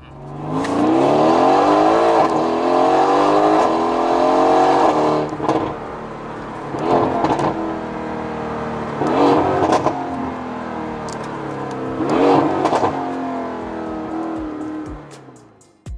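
Mercedes-AMG GT S twin-turbo V8 through a valved aftermarket exhaust with catless downpipes, accelerating hard, its pitch climbing through the gears. It then lifts off and, as the car slows, gives three short loud bursts of revs with crackle before fading away.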